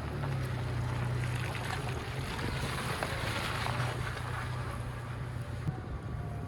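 Truck driving, its engine running steadily under a broad wash of road and wind noise.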